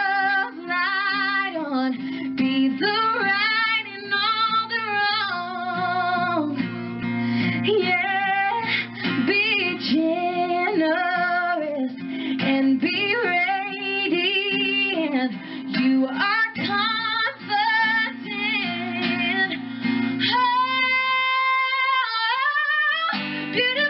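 Pop ballad: a woman singing long, gliding melodic runs over a steady guitar accompaniment. Near the end the accompaniment drops out for about two seconds under a held vocal note, then comes back in.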